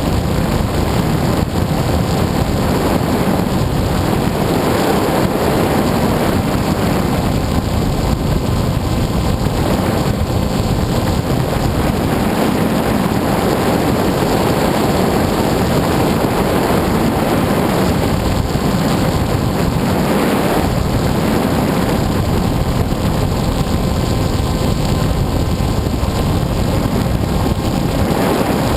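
Onboard sound of an FPV aircraft in flight: a steady rush of wind over the microphone, with a steady motor hum beneath it.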